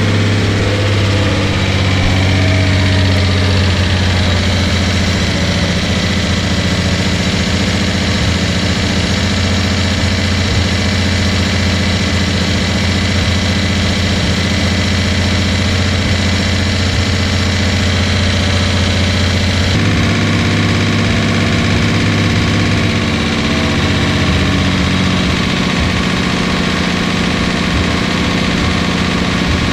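Datsun 280Z's freshly rebuilt L28 straight-six running steadily at a raised idle during break-in, with an even, unchanging drone. Its note changes abruptly about twenty seconds in.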